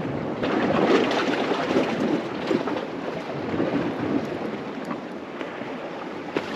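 Sea washing against a rocky shoreline, mixed with wind on the microphone: a steady rushing noise that swells about a second in and eases off later, with a few faint taps near the end.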